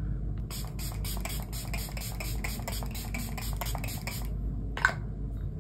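Pump spray bottle misting the face with many quick sprays, about five a second for nearly four seconds, then one short sound near the end.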